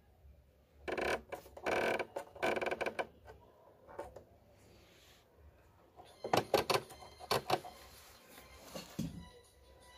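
Plastic control dials on an Usha Janome Allure DLX sewing machine being turned by hand, clicking and rattling through their settings in two short spells: first the stitch-length dial, then a few seconds later the pattern-selector dial.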